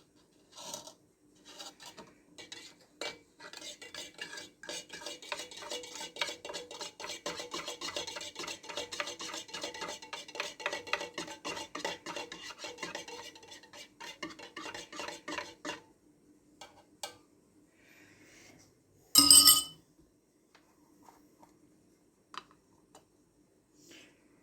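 Teaspoon stirring coffee in a mug: a run of quick, even clinks lasting about twelve seconds, with a few scattered clinks before it. A single brief, loud clatter follows a few seconds after the stirring stops.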